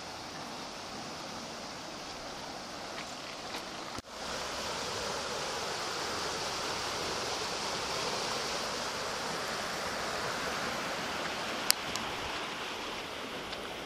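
Brown floodwater rushing and churning steadily through a swollen concrete-lined drainage channel. The rush drops out for a moment about four seconds in and comes back a little louder, and a single sharp click sounds near the end.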